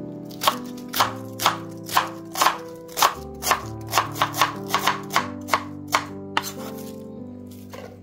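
Kitchen knife shredding cabbage on a cutting board: about sixteen sharp strokes, roughly two a second, quickening from about four seconds in and stopping near six and a half seconds, over background music.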